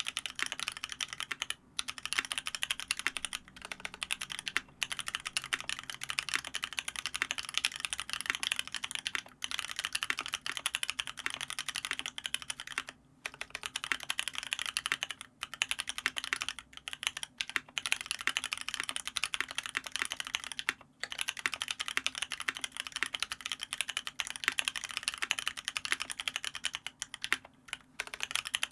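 Fast continuous typing on a custom mechanical keyboard with lubed Paco switches (cream housing, Halo stem) in a brass plate and PBT keycaps: a dense run of keystroke clicks, broken by a few short pauses.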